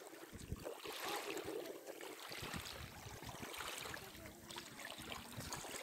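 River water sloshing and splashing around men wading while they handle a cast net, with wind buffeting the microphone.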